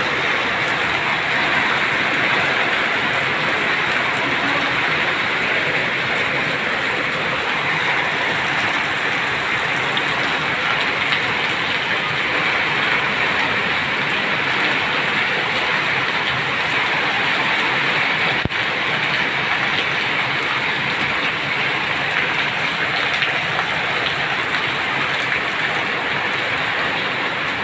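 Heavy rain pouring down steadily, a dense, even hiss of rain on the ground and surfaces outside.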